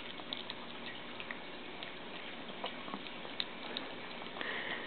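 Small dog's mouth smacking and licking as a Pomeranian eats peanut butter: scattered short wet clicks over a quiet background.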